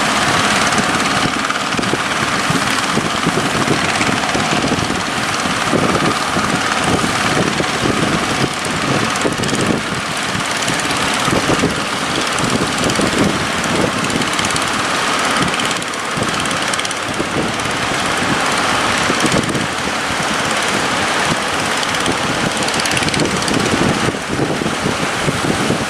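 Boat engine running steadily under way, with wind buffeting the microphone and the rush of water.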